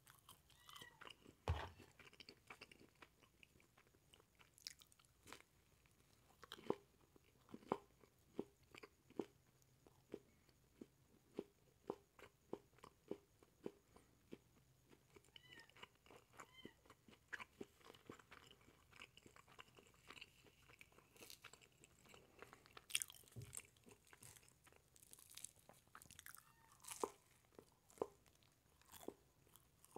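Close-miked chewing and mouth sounds of a person eating a quesadilla: soft wet smacks and clicks, at times a steady run of about two a second. There is a louder thump about a second and a half in.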